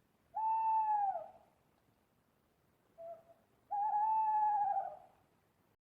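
Owl hooting: two long hoots about three seconds apart, each dropping in pitch at its end. The second hoot wavers and comes just after a short, quieter note.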